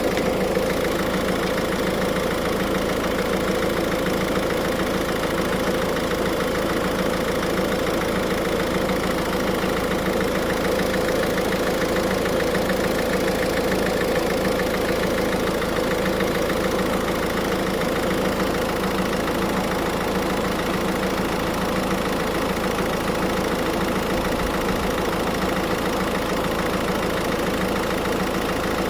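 A car engine idling steadily with the air conditioning switched on, a continuous even hum throughout.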